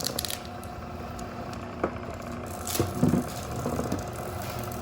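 Wire stripping machine running with a steady mechanical hum, with a few short clicks and knocks as copper wire is fed through.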